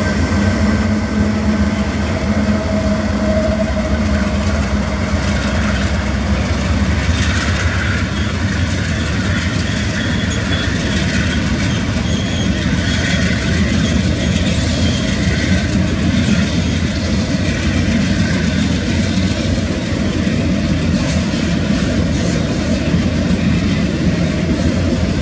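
Freight train rolling past behind a GE AC44i diesel-electric locomotive: a steady engine drone mixed with the rumble of wheels on the rails.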